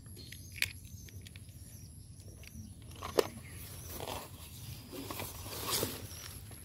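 Light handling sounds of plastic toys: a toy excavator is set into a cardboard box of toy vehicles, with a few short clicks and one sharper knock about three seconds in, then soft rustling through grass.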